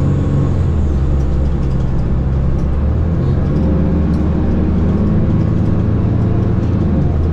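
Mercedes-Benz O530 Citaro city bus under way, heard from inside the passenger cabin: its OM 906 hLA six-cylinder diesel running as a steady low drone.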